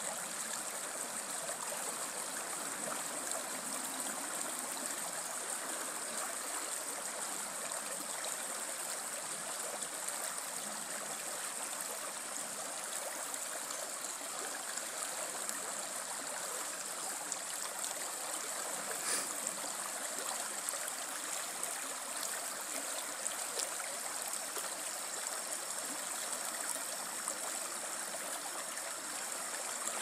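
Shallow, rocky river running steadily over a low riffle, an even rush of water.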